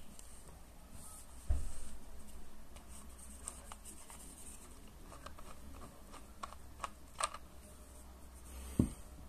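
Handling noise from a vape box mod and its tank atomizer: a soft knock about one and a half seconds in, a run of light clicks a few seconds later, and a louder knock near the end.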